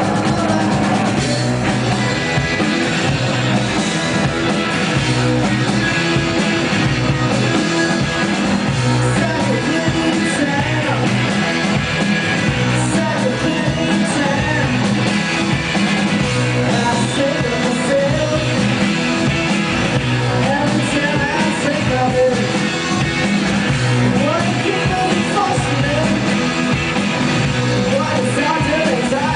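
A live rock band playing a song, with a singer over guitar and drums.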